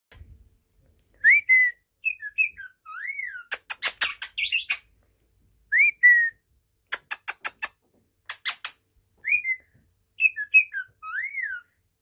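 Parakeet whistling a short phrase of rising-and-falling notes, repeated several times, broken by runs of quick clicks.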